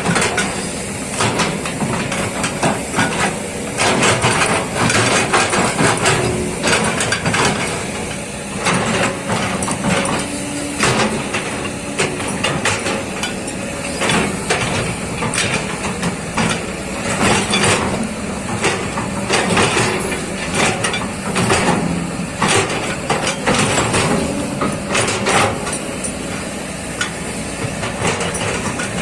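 Kobelco hydraulic excavator working: its diesel engine runs continuously, with frequent irregular knocks and clanks as it digs.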